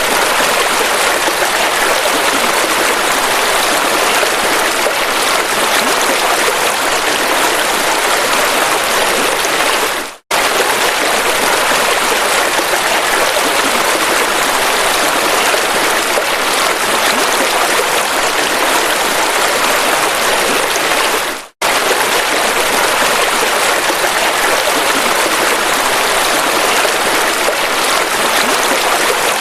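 River water rushing steadily, a dense, even hiss of flowing water. It fades out and starts again abruptly twice, about 10 and 21 seconds in.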